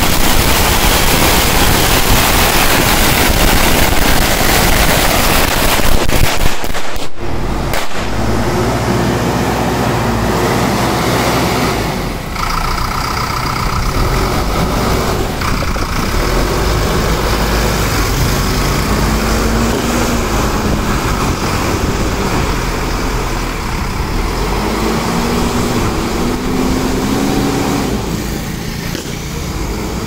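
A string of firecrackers crackles rapidly for the first several seconds, then stops. After that the diesel engine of an ACE AX-124 backhoe loader runs steadily as it drives along the street, with passing traffic.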